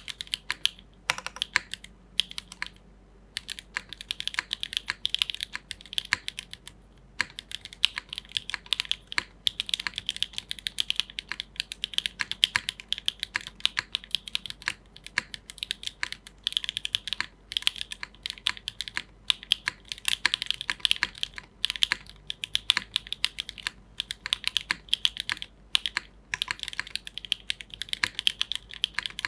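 Fast, steady typing on a TYP60 60% mechanical keyboard with SWK Dragon Ghost switches and GMK keycaps on an O-ring-mounted carbon-fibre plate. A few isolated keystrokes come first, then a short pause. Dense runs of key clacks follow from about three seconds in, with only brief breaks.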